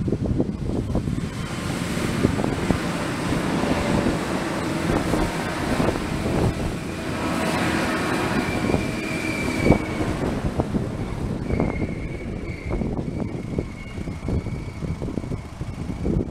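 Iarnród Éireann diesel passenger train passing over a level crossing: its rumble and wheel noise grow to a peak about eight to ten seconds in, then fade. Wind buffets the microphone throughout. A thin high tone holds over the last several seconds.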